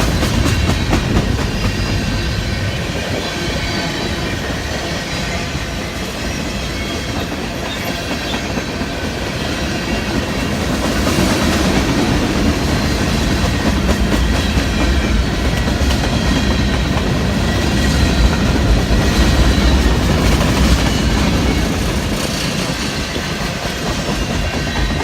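Long freight train's cars rolling past: a steady rumble with the clickety-clack of wheels over rail joints, swelling a little louder twice.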